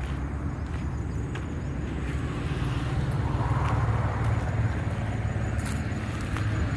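Highway traffic running steadily, a low engine hum with road noise that swells a little about halfway through as a vehicle goes by.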